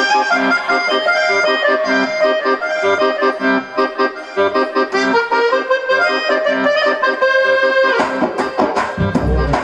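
Dance music with a sustained melody over a steady bass beat. About eight seconds in, heavy drums come in with deep bass thuds.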